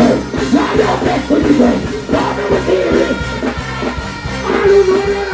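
Live dancehall performance: a deejay's voice through the microphone over a pounding backing beat with heavy bass, played loud through the stage sound system.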